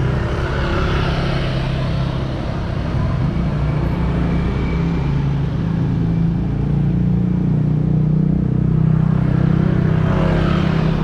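Steady low hum of motor vehicle engines running, with a brief change in pitch from a passing engine about ten seconds in.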